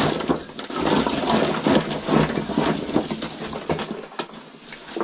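Firewood being handled and gathered by hand: a busy run of rustling, scraping and light knocking of sticks that quietens near the end, with one sharp knock shortly before the end.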